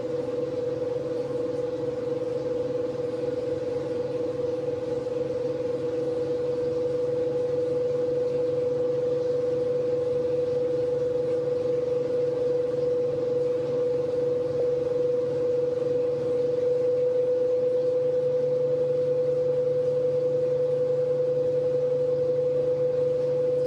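Victron MultiPlus-II 5 kVA inverters under a heavy load of about 8.6 kW, their cooling fans spinning up over a steady hum. The noise grows gradually louder.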